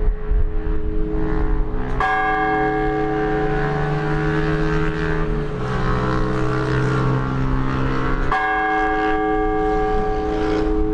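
Orthodox church bells ringing for the all-night vigil: several bells of different pitch sound together, their tones hanging on. Fresh strikes come about two seconds in and again near the end, and the deepest note changes about halfway, over a low rumble.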